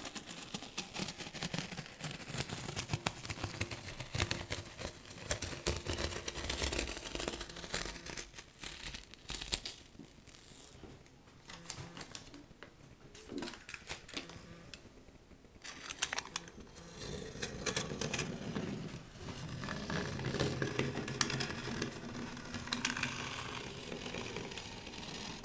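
Blue painter's tape being peeled off a countertop edge and crumpled, an irregular crackling and tearing with many small clicks.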